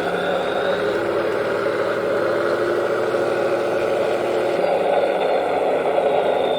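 Henglong T-72 RC tank's sound unit playing its simulated tank engine running steadily through the model's small onboard speaker, with a faint high whine near the start and end.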